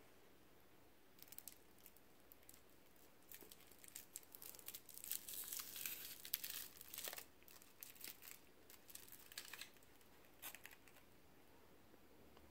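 Faint crinkling of a Lindor truffle's foil twist wrapper as it is handled and unwrapped by hand, in irregular bursts of crackles that are busiest and loudest in the middle and fade out near the end.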